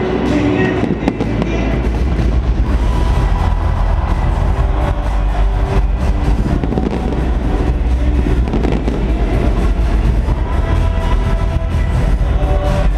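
Stadium fireworks firing in dense volleys: many rapid bangs and crackles over a heavy low rumble, with loud music playing underneath.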